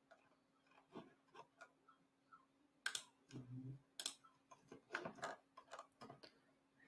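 Faint, irregular clicks of a computer mouse and keyboard, with two sharper clicks about three and four seconds in, over a faint steady hum.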